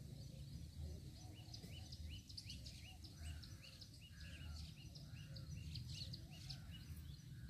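Birds chirping: a faint run of short rising chirps repeating a little over twice a second, with lower falling calls joining about three seconds in, over a faint low rumble.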